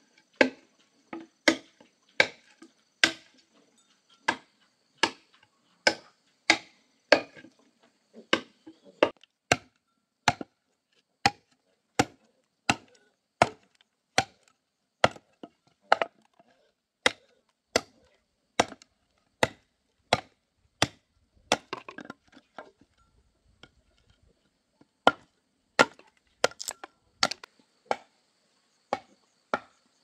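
Wood being chopped in steady strokes, about three every two seconds, with a break of a few seconds past the middle.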